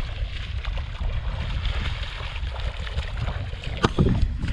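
Wind buffeting the microphone with a steady low rumble, over the even rush of river water. One sharp click near the end.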